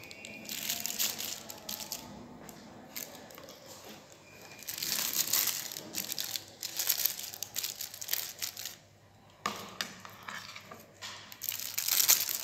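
Thin plastic piping bag crinkling and rustling in irregular bursts as mashed potato mixture is spooned into it. Near the end it grows louder, with a brief lull a little before.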